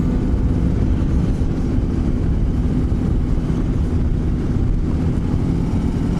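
Motorcycle riding on the road: a steady low rumble of engine and wind.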